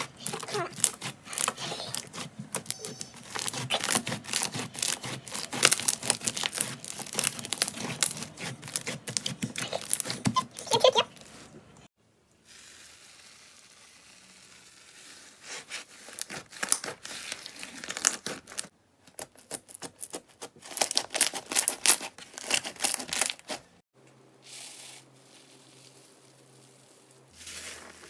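Slime being squeezed and worked, with dense crackling and popping. Two quieter stretches break it up, one in the middle and one near the end.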